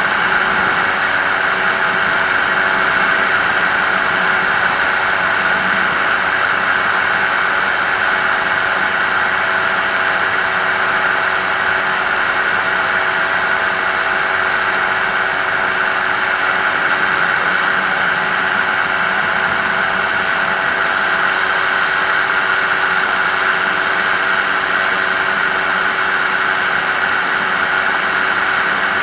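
Microlight aircraft's engine and propeller running steadily in cruise flight: a constant drone over a strong rushing hiss.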